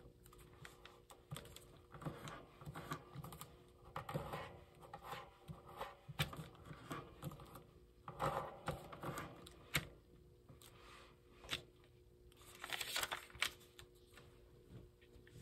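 A sheet of origami paper being folded by hand: irregular small clicks and taps as fingers press and crease the paper, with short crisp rustles as the sheet is bent and flattened, the louder rustles about eight seconds in and again near the end.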